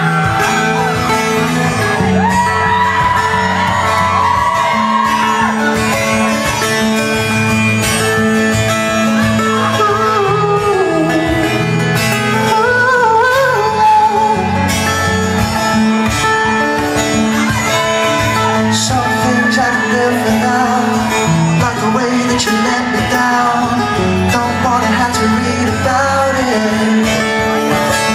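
Live pop-rock band playing a song in a large hall: a male lead voice sings over guitar, bass and drums.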